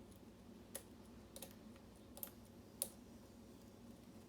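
Four faint, sharp metallic clicks, spread out, as a lock pick works the pins of a Sargent Assa-based challenge lock under tension.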